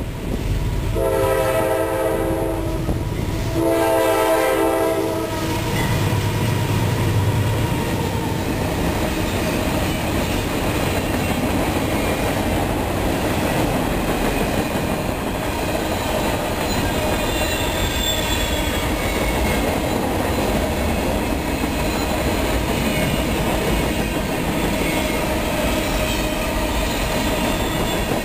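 Diesel freight locomotive sounding two long horn blasts, several notes at once, as it approaches. The train then rolls past, its wheels rumbling and clattering steadily over the rail joints.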